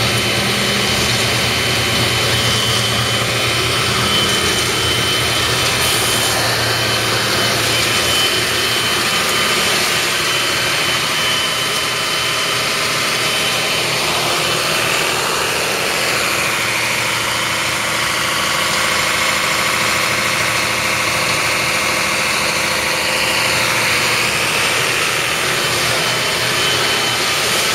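Concrete mixer truck engine running steadily at a constant speed, with a thin steady high whine over the drone.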